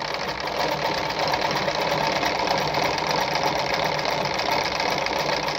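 Mercedes 340FB domestic sewing machine running steadily at speed, sewing one side of a buttonhole, with a rapid, even rhythm of needle strokes.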